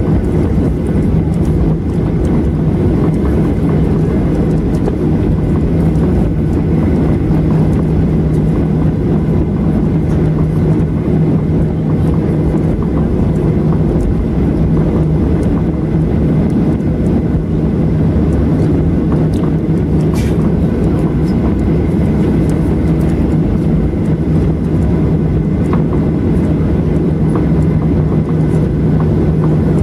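Inside the cabin of a Boeing 737-800, its CFM56-7B turbofan engines running at taxi power: a steady low drone with a constant hum. There is a single brief click about twenty seconds in.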